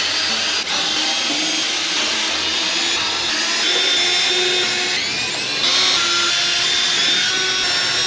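Handheld cordless drill running continuously under load against a skid steer's axle hub, its pitch shifting a few times.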